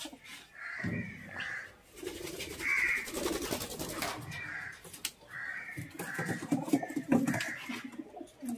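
Pigeons cooing, with other birds giving short calls roughly once a second and the rustle of a bundle of dry grass being handled.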